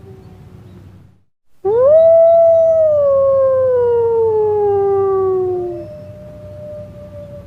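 Canine howling. A loud, long howl rises quickly, then slowly falls in pitch over about four seconds. A second, quieter falling howl starts just as it ends.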